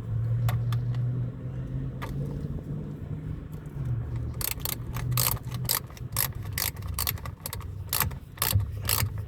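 Ratchet wrench clicking in quick, even strokes, about four a second, from about four seconds in, while a battery cable connection is tightened. There are a few light metal clicks before it, and a low steady rumble throughout.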